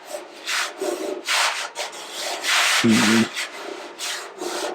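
A few slow rubbing strokes across the repaired steel bonnet panel, with a brief vocal sound about three seconds in.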